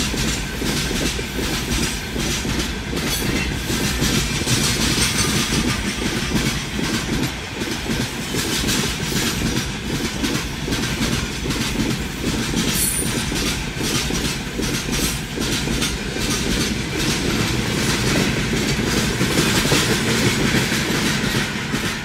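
Freight train of open gondola wagons rolling steadily past a level crossing, heard from inside a car: continuous rumble with wheels clattering over the rail joints in a clickety-clack. The noise drops off suddenly at the very end as the last wagon clears the crossing.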